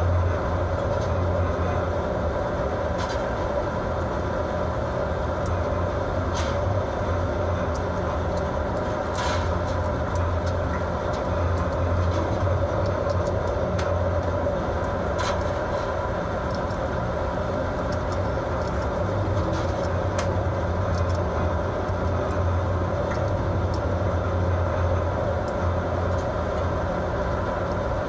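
Steady low drone of a fishing boat's engine and machinery under way in heavy seas, with a hiss of wind and water and a few faint clicks.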